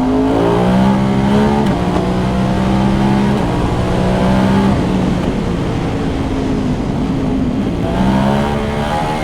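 Ducati Hypermotard V2's V-twin engine through a dB-compliant titanium full exhaust with Inconel headers, ridden on the road. The engine holds fairly steady revs with small steps in pitch, fades mostly into wind and road noise through the middle, then picks up and rises again near the end.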